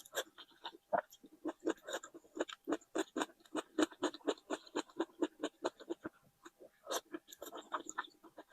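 Close-miked chewing of a mouthful of food, quick rhythmic chews at about five a second, pausing briefly about six seconds in and then resuming.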